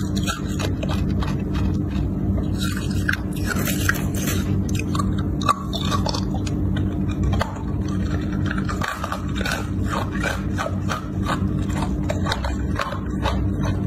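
Hard clear ice being bitten and chewed: a dense, irregular run of sharp crunches and cracks. A steady low hum lies under it.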